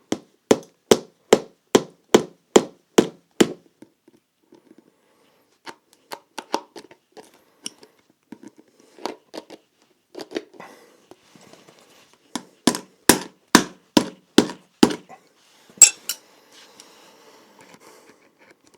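Hammer blows on a shoe being stripped down, in two quick runs of about eight strikes each at roughly two to three a second, with lighter scattered taps between them and one sharp click after the second run.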